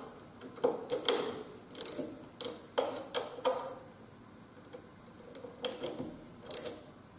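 Irregular metallic clicks and ticks from an Allen key working the clamp screw of a Givi S902A handlebar phone holder, a short turn at a time, as the clamp is tightened; a cluster of clicks, a pause of a second or two, then a few more near the end.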